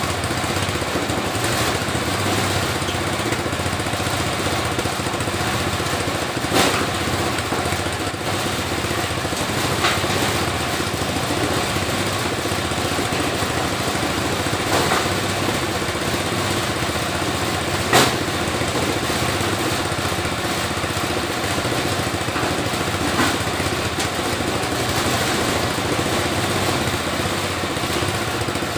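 Homemade areca nut dehusking machine running steadily as it threshes dry areca nuts, with a few sharp knocks, the loudest about two thirds of the way in.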